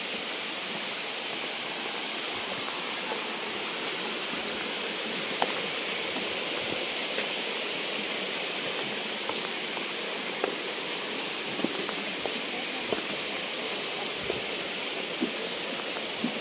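Steady rushing of water from a waterfall, with a few light clicks scattered through.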